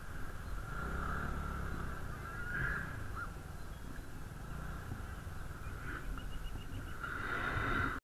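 Two-wheeler engine running at low speed in city traffic, with vehicle horns honking around it and a short run of quick beeps about six seconds in.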